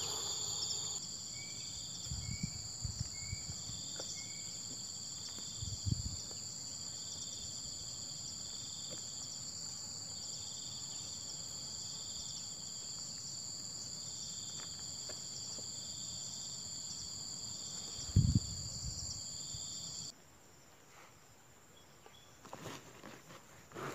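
Insects (crickets or cicadas) keep up a steady high-pitched drone with a regular chirp about once a second, which stops abruptly about 20 seconds in. A few dull low thumps sound along the way, the loudest about 18 seconds in.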